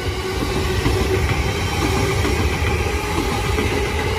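JR East E235-1000 series electric train rolling slowly past along the platform: a steady rumble of wheels and running gear, with a steady whine on top.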